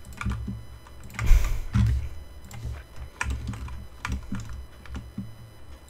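Computer keyboard keys being pressed in irregular clusters, a few clicks a second, with a heavier knock about a second in.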